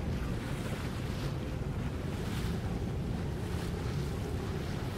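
Motorboat engine rumbling under rushing water, with wind buffeting the microphone in uneven gusts.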